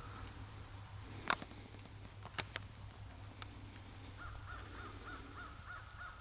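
Faint animal calls in a quick even series, about three or four a second, starting about two thirds of the way through. A few sharp clicks come earlier, the loudest about a second in.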